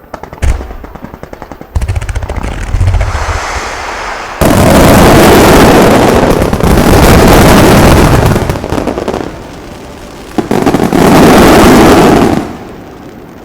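Fireworks finale: a single bang, then rapid popping, then two long stretches of dense, continuous explosions, loud enough to reach full scale, which die away near the end.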